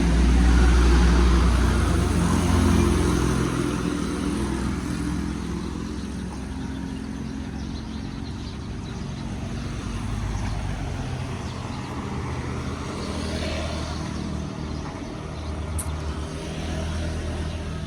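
A motor vehicle engine running nearby with a low, steady hum, loudest for the first three seconds or so and then easing off to a lower level, over general street noise.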